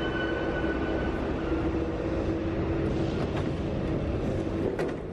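Old NS74 metro train standing at the platform with its doors open, its onboard equipment giving a steady hum over the station noise. The hum stops just before the end with a sharp click.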